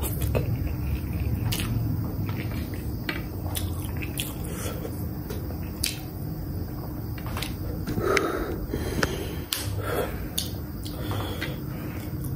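Close-up eating sounds: instant noodles being taken in and chewed, with scattered sharp clicks of a metal fork and spoon against the plate.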